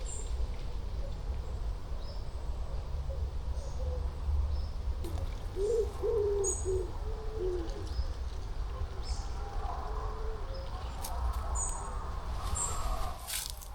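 Wild birds calling: a run of short, low notes a little past the middle, with brief high chirps scattered throughout.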